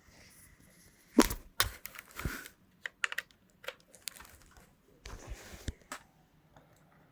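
Plastic LED desk lamp being handled: a quick run of sharp clicks and knocks, then a short rustle and one more click near the end.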